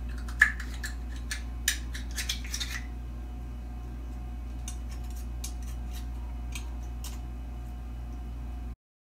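Butter knife prying a whole oyster open at the hinge: sharp clicks and scrapes of metal on shell, the loudest about half a second in and a cluster up to about three seconds, then a few faint ticks. A steady low hum runs underneath, and the sound cuts off abruptly near the end.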